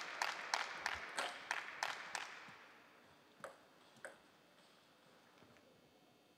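Hand clapping, about three claps a second, echoing in a large sports hall and dying away after about two seconds. Then two sharp taps about half a second apart, a table tennis ball being bounced before the serve.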